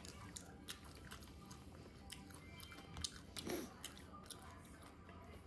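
Faint, irregular small clicks and crunches, close to the microphone, over quiet background music.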